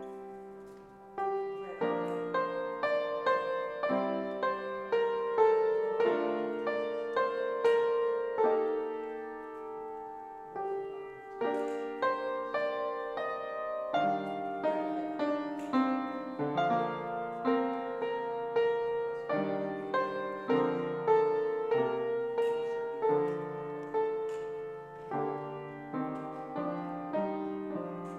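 Piano playing a slow, gentle piece of chords and melody, each note struck and left to ring away.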